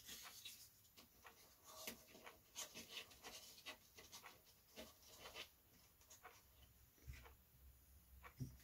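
Faint rustles and light clicks of hands handling and fitting small balsa-wood formers, with a soft knock near the end.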